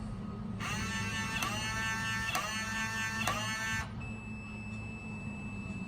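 Baldwin 8285 keypad deadbolt's motor whirring in four short runs, each ending in a click, as the malfunctioning auto-lock drives the bolt again and again. A faint steady high tone follows for the last two seconds.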